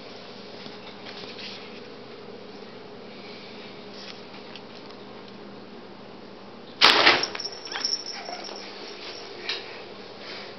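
Paper bag rustling and crackling as a kitten bursts out of it: a sudden loud rustle about seven seconds in, followed by several lighter rustles over the next few seconds.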